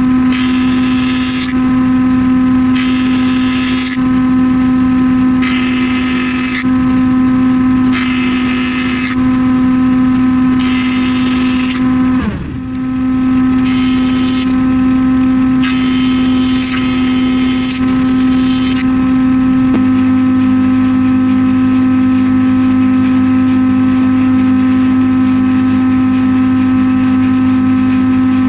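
Planing machine running with a steady hum, with repeated bursts of cutting noise as lengths of glazing-bar timber are fed through on the bevel jig. The motor briefly dips in pitch under load about twelve seconds in. From about twenty seconds in it runs on steadily with no cutting.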